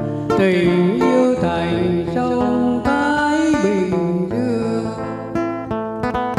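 Man singing a Vietnamese song into a microphone with wavering vibrato, accompanied by a plucked acoustic guitar. The voice stops about four seconds in and the guitar plays on alone.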